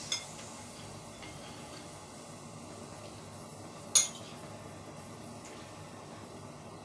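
A metal spoon clinking against a ceramic plate twice, once right at the start and again about four seconds in, as pieces of boiled chicken are scooped off it.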